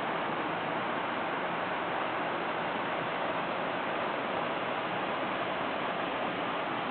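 Small twin waterfall pouring into a rocky pool: a steady, even rush of falling water.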